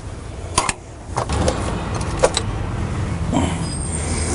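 Sharp metallic clicks and clanks from hand tools working on the AC compressor's mounting bolts, over a steady low hum that sets in about a second in.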